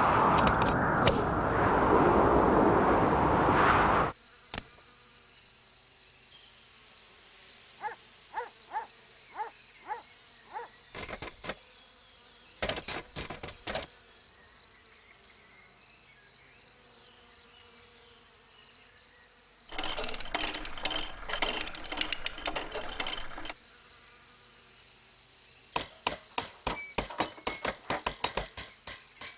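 A cricket trilling steadily on one high, fast-pulsing note. For the first four seconds a loud rushing noise covers it. It is broken by scattered clicks, a few short blips, and a loud burst of rustling noise from about twenty to twenty-three seconds in.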